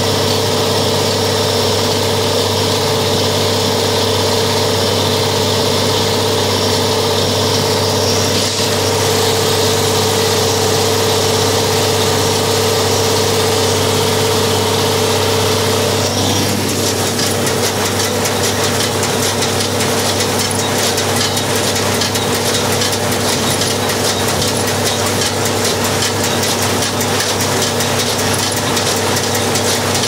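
Old Farmall 806 tractor engine running steadily under load while pulling a hay baler in the field. About halfway through the tone shifts and a rapid ticking clatter comes in over the engine.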